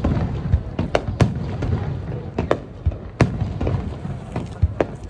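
Fireworks display: aerial shells bursting in a quick, irregular run of sharp bangs over a low rumble, loudest a little after a second in and again about three seconds in.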